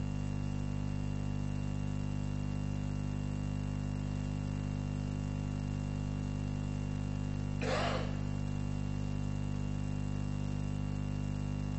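Steady low electrical hum with a faint high whine above it, during a silent pause. A short burst of noise comes about eight seconds in.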